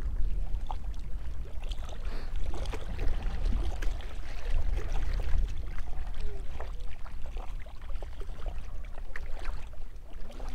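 Wind buffeting the microphone as a steady low rumble, with small choppy waves lapping and splashing in short irregular slaps.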